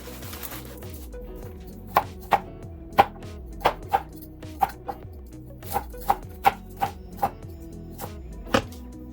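Knife chopping on a cutting board: about a dozen sharp, unevenly spaced strokes beginning about two seconds in, over background music.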